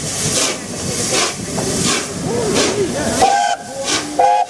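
Three-cylinder Peppercorn A1 steam locomotive 60163 Tornado pulling slowly past, its exhaust beating in regular hissing chuffs with steam hissing between them. A couple of short pitched tones sound near the end.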